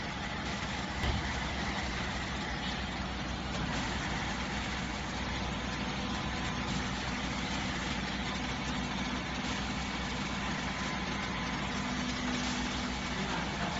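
Hydraulic home lift's electric pump motor switching on with a click about a second in, then running with a steady hum as the cabin rises.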